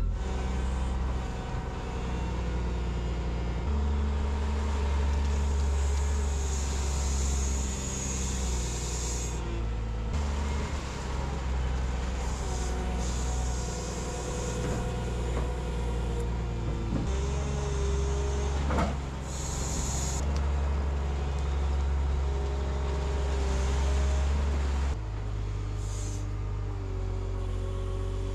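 Heavy loader engine working under load, with a whining hydraulic note, bursts of hiss and a sharp knock of metal about 19 seconds in.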